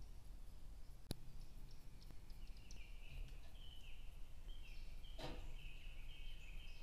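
Quiet outdoor ambience with faint, high bird chirps in the trees, and two sharp clinks, about a second in and about five seconds in.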